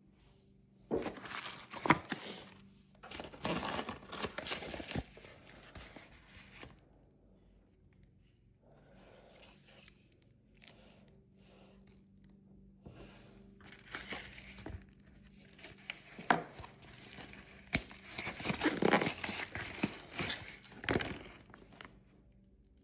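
Handling noise: irregular bursts of rustling and crinkling, with a few sharp clicks, in two spells separated by a quieter stretch.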